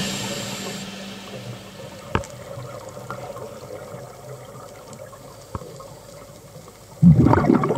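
Muffled underwater sound picked up by an underwater camera, a faint watery hiss with two brief clicks. Background music fades out at the start, and a sudden loud burst of sound comes in near the end.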